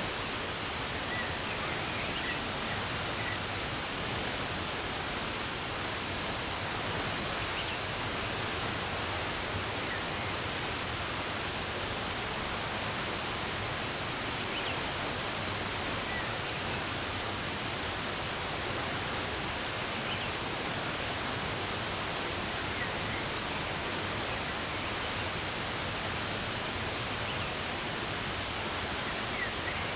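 Steady rush of running water, with faint, short bird chirps here and there.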